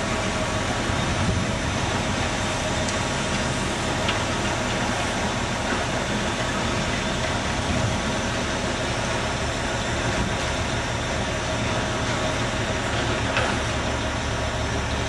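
A steady engine-like machinery noise with a constant low hum, running evenly without change.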